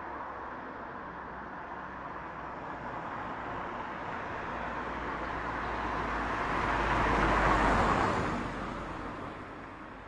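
A single road vehicle passes close by: its engine and tyre noise builds slowly, peaks about seven and a half seconds in, then fades away. Underneath is a steady wash of city traffic.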